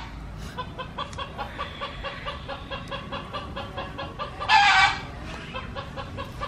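Chickens clucking in quick, repeated short notes, with one loud, short call about four and a half seconds in.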